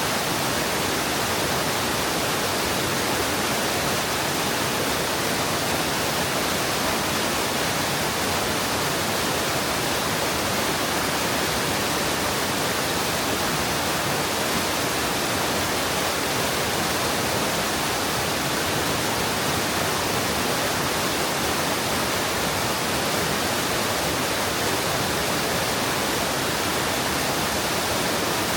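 Mountain stream water rushing steadily over rock into a pool, an unbroken roar without changes.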